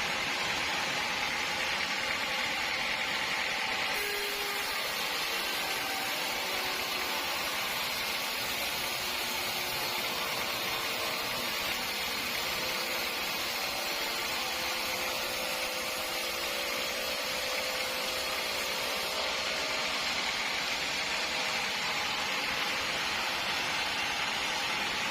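Sawmill machinery running steadily with a constant hiss. A faint humming tone joins it about four seconds in and fades out about nineteen seconds in.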